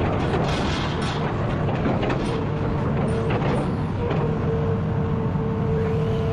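Hitachi Zaxis 210F amphibious excavator's diesel engine running steadily under load with a steady whine, and scattered knocks and scrapes in the first few seconds as the bucket digs into mud and roots.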